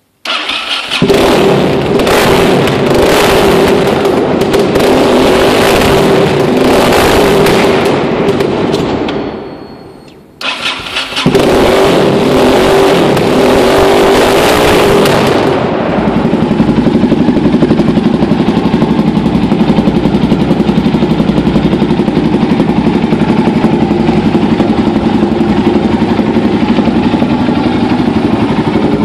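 Yamaha XTX660's single-cylinder engine, breathing through a handmade twin-silencer exhaust, starts and is revved in repeated throttle blips. The sound fades to a near stop about ten seconds in, the engine is started again and revved, then it settles to a steady, even idle from about sixteen seconds in.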